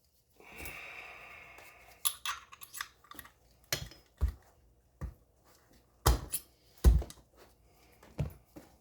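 Sharp metal taps, knocks and clicks from punching out the single trigger-group pin of a semi-auto shotgun and handling its parts, with a short scraping hiss about half a second in. The loudest knocks come about six and seven seconds in.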